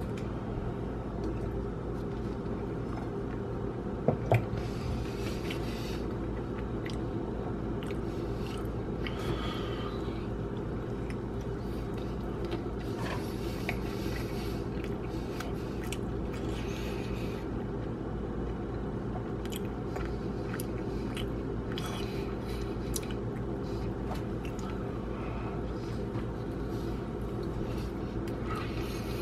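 A person biting and chewing a toasted sandwich: crackly chewing and mouth sounds come and go every few seconds over a steady low hum. Two sharp clicks come about four seconds in.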